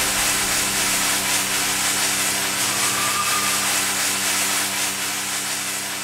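Security fog cannon blasting fog: a loud, steady hiss of spray under pressure, with a low sustained tone beneath it, easing slightly near the end.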